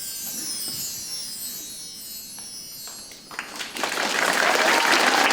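High metal chimes ringing in repeated falling runs, the close of a class's musical soundscape. About four seconds in, an audience breaks into applause that drowns them out.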